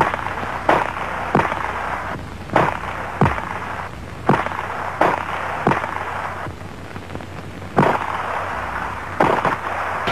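Sporadic gunfire: about a dozen single shots at irregular intervals, each a sharp crack, over a steady noisy background.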